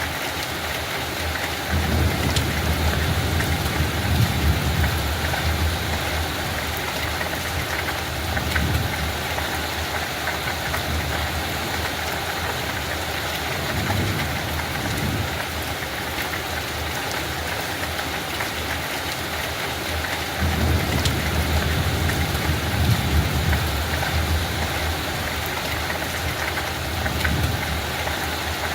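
Steady rain hissing on a field, with several low rumbling swells rising and fading under it, the longest about two seconds in and about twenty seconds in.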